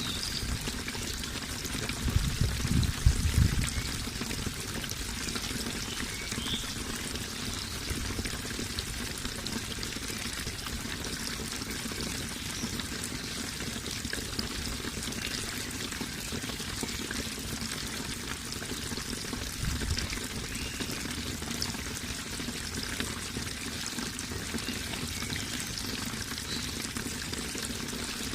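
Running water, a steady rush with trickling, pouring sounds. A brief low rumble rises over it about two seconds in, and a shorter one comes near twenty seconds.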